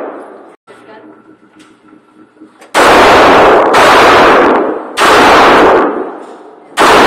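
Pistol shots in an enclosed indoor range. The echo of one shot dies away, and after a pause of over two seconds come four more shots about a second apart. Each is loud and distorted, with a long echo off the concrete walls.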